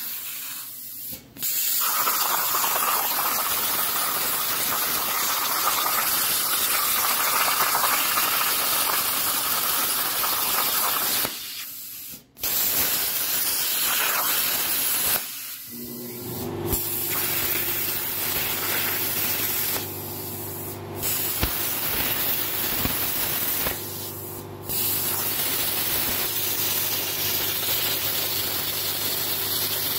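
CNC plasma cutter torch cutting 3/16-inch steel plate: a loud, steady hiss of the arc and air jet, cutting out briefly a few times as the torch stops between cuts. From about halfway through, a steady low machine hum runs underneath.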